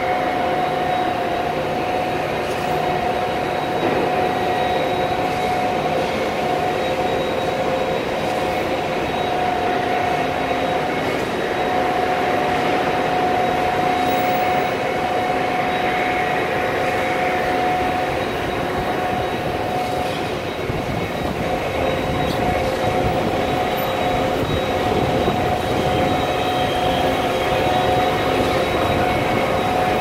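Concrete mixer trucks and a concrete pump running together: a loud, steady mechanical din with a constant high whine.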